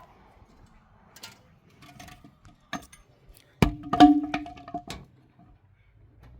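A few light knocks, then a loud strike about three and a half seconds in and a second just after, on something hard that rings with a steady tone for about a second before fading.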